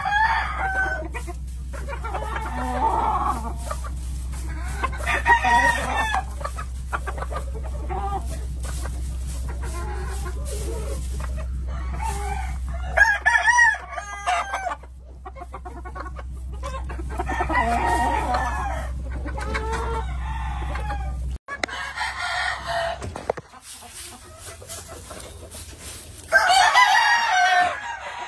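Roosters crowing again and again, several long crows in turn, with clucking between them. A steady low hum sits underneath and cuts off suddenly about three-quarters of the way through.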